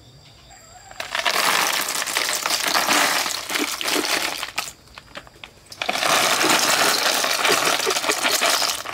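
Live snails poured from a plastic bucket into plastic trays, their shells clattering and rattling against each other and the tray. Two long pours, the second starting about six seconds in.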